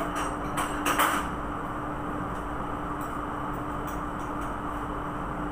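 Steady mechanical hum of shipboard machinery, with a few metal clinks and knocks in the first second or so from Wartsila 46 fuel pump parts being handled on the assembly stand.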